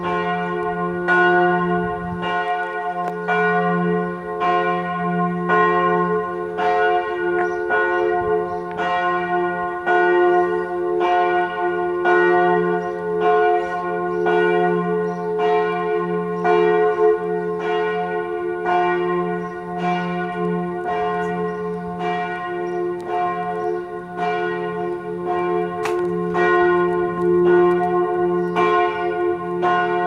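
Church bells of St. Leonhard's in Basel ringing a full peal: several bells striking over and over, about once or twice a second, their strokes overlapping into continuous ringing over a sustained low hum.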